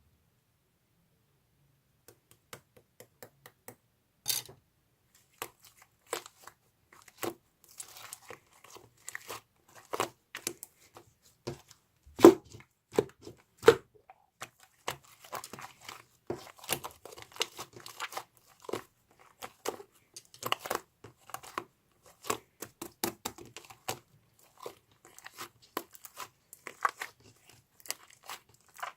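Irregular crinkling, crackling and tearing sounds, like paper or thin plastic being torn and crumpled. They start out sparse and turn into a near-continuous run of snaps, with one sharp loud snap about twelve seconds in.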